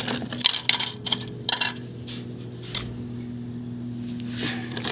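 Black plastic speaker back plates clacking as they are handled and set down on a concrete floor: a handful of sharp knocks spread over the few seconds, over a steady low hum.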